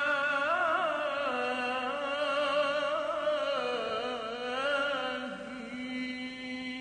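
A man's voice chanting an Islamic munajat supplication in a long, ornamented melisma, the pitch winding up and down in slow waves with vibrato. A steady lower held note sounds beneath it from about five seconds in.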